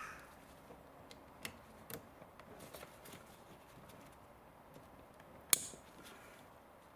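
Handling of a car radio wiring harness and its plastic connectors: a few small clicks and rustling, then one sharp snap about five and a half seconds in as a connector is plugged in.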